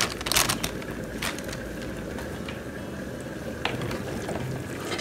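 Dry macaroni tipped from a plastic bag into a pot of boiling water, the bag crinkling, then a wooden spoon stirring the pasta with sharp knocks and clicks against the metal pot, many in the first second and a few scattered later.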